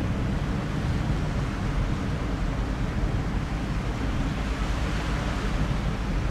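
Wind buffeting the microphone: a steady low rumble with a fainter hiss above it.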